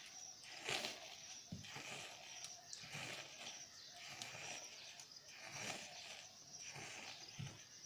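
Goat being milked by hand: squirts of milk hissing into a small steel pot, about two a second in a steady rhythm.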